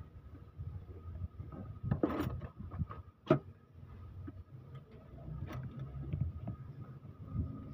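Scattered clicks and knocks of hands and metal parts being handled on the open cylinder head of a Toyota 2KD diesel engine, with a rustle about two seconds in and a sharp click a second later. A faint steady high tone sits underneath.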